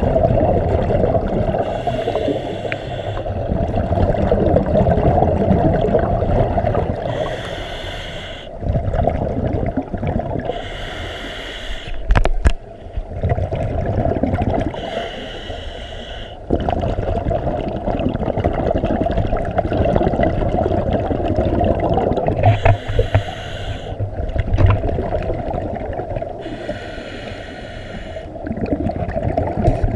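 Underwater breathing of a diver: bursts of exhaled bubbles every few seconds over a steady low rumble of water.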